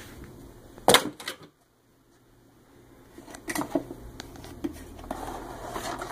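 Parts being handled on a workbench: a sharp knock about a second in, a brief silence, then light clatter and small knocks.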